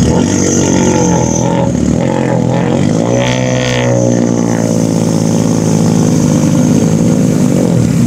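Rally car engine running, revving up about three seconds in and easing slowly back down over the next few seconds.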